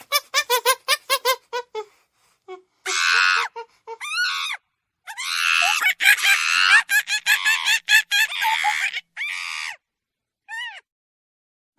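Monkey calls: a quick run of about a dozen short pitched calls, then longer harsh, noisy calls with silent gaps between them.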